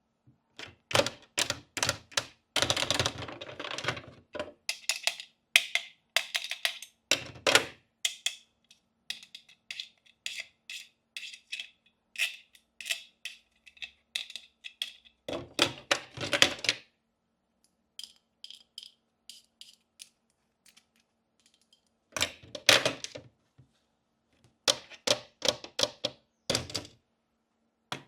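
Miniature toy pieces being handled: quick clicks and taps in clusters, with short pauses between them.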